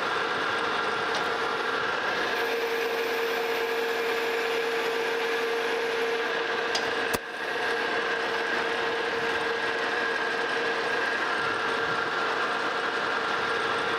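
Monarch metal lathe running steadily with a whine from its drive, while a threading bar takes an internal threading pass in the spinning workpiece. A single sharp click comes about halfway through.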